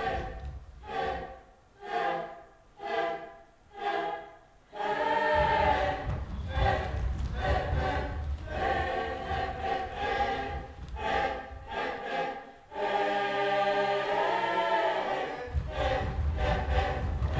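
Choir singing: short chanted phrases about once a second for the first few seconds, then sustained singing in harmony from about five seconds in.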